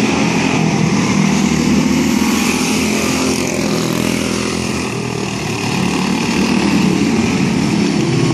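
Quarter midget race cars' small single-cylinder Briggs & Stratton Animal engines buzzing continuously as the cars lap a dirt oval. The pitch shifts up and down as the drivers throttle through the turns.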